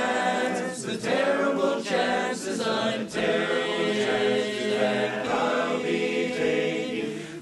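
Male choir singing a cappella in close harmony, holding long chords that shift slowly.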